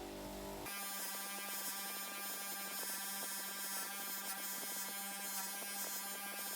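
Small electric rotary polishing tool running steadily, a constant motor whine made of many even tones. The sound changes abruptly about a second in.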